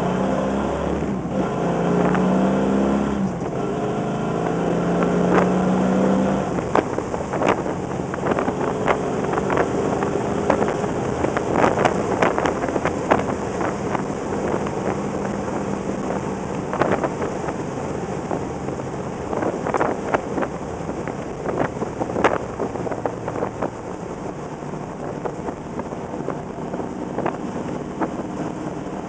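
Plymouth Road Runner's 440 V8 heard from inside the cabin on the road: the engine pulls up through the revs over the first several seconds, then eases to a steady cruise under road and wind noise. Scattered sharp knocks and rattles come through the middle of the stretch.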